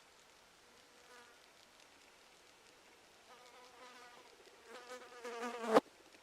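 A flying insect buzzing close by with a wavering hum, faint at first and growing louder over the last few seconds. It cuts off with a sharp tap near the end, the loudest sound.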